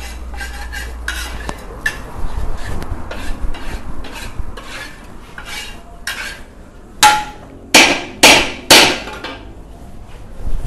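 Metal spatula scraping and clanking in a wok as fried rice is stirred. Near the end come four loud, sharp clangs within about two seconds, the spatula striking the wok.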